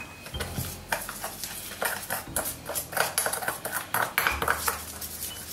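A fork stirring dry spices in a small stainless steel bowl: quick, irregular metal clinks and scrapes against the bowl as salt, five-spice powder and sugar are mixed into a dry marinade.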